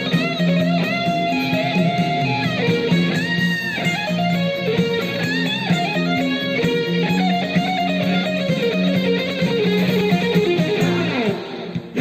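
Electric guitar playing a lead solo with string bends and vibrato over a backing track with steady sustained low notes. Near the end a long downward pitch glide comes in, then the guitar briefly drops out.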